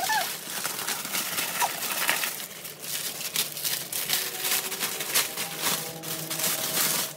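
Clear plastic wrapping crinkling and rustling as it is pulled off a thick nail-table mat, a dense run of crackles throughout.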